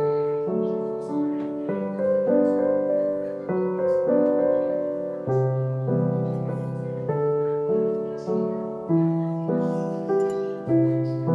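Background piano music: a melody of struck notes, each fading away, over lower notes that change every second or two.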